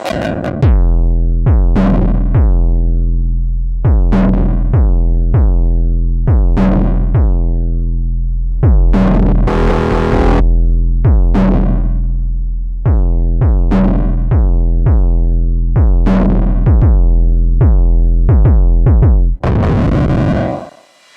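Electronic synthesizer music: a sequence of plucked synth notes, each with a quickly falling bright sweep, over a deep sustained bass. A burst of noise comes about halfway, and a noise swell near the end cuts off suddenly.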